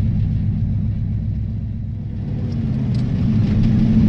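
Ford 302 V8, running on a lawnmower carburetor, heard from inside the car's cabin while driving. The engine note eases off about halfway through, then grows louder again.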